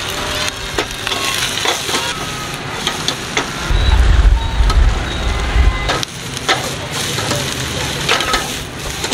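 Sweetcorn kernels, dried shrimp and egg sizzling in a stainless steel pan while a wooden spoon stirs and scrapes, with sharp knocks of the spoon on the pan; the pan is tossed near the end. A low rumble runs through the middle few seconds.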